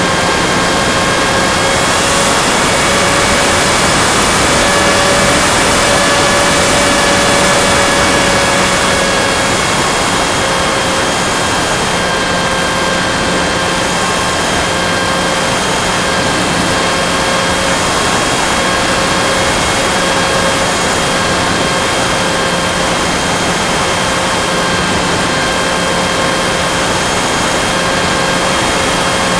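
Go Discover FPV plane's motor and propeller running steadily in flight, a pitched whine under heavy rushing-air noise, as picked up by the plane's onboard camera. The whine rises slightly a few seconds in, then settles back.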